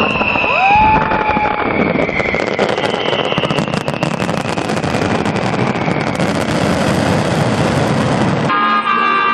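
Fireworks going off in dense, rapid crackling, with a few gliding whistles in the first two seconds. Near the end it cuts to brass band music.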